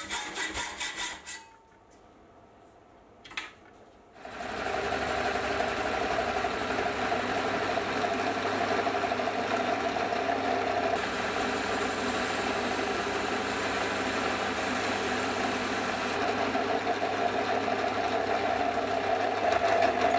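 A saw blade briefly rasping through a steel bar, then a short pause with one click. From about four seconds in, a metal lathe runs steadily with a hum and several steady tones while it turns and faces the steel bar and then drills into its end.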